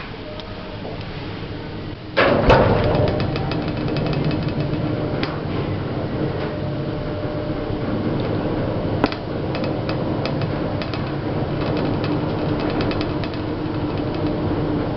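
Old hospital service lift in motion: a loud clunk about two seconds in, then a steady low mechanical hum with a fast, continuous rattle of small clicks as the car travels.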